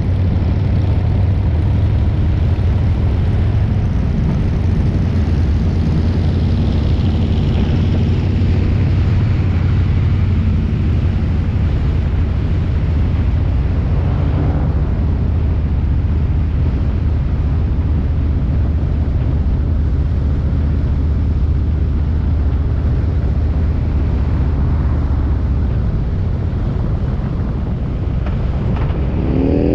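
Motorcycle engine running steadily under way, a low even hum with wind noise over it; near the end the revs climb as it accelerates.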